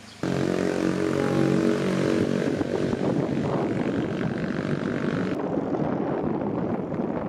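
Moving car heard from inside with the window open: a steady engine hum mixed with wind rushing over the microphone, starting abruptly about a quarter second in. The engine hum is clearest for the first few seconds, after which the wind and road noise take over.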